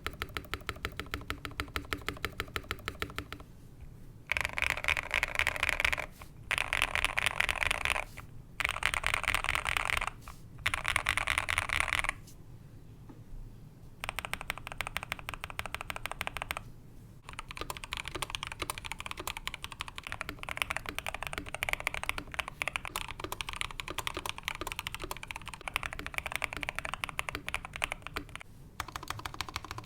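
Keystrokes on a Next Time 75 mechanical keyboard with lubed and filmed Tecsee Ice Candy switches, in its modded build with PE foam and tape mods. A run of quick clicks comes first, then four dense bursts of rapid keypresses of about two seconds each, then steady typing from about halfway in.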